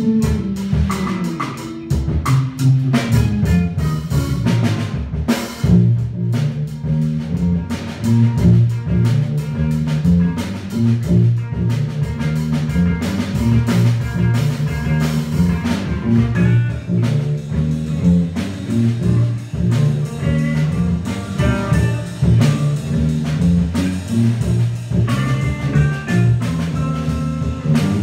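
Live trio of electric bass, electric guitar and drum kit playing a groove together. A busy bass line of quick, moving notes carries the tune under electric guitar notes and drum strokes.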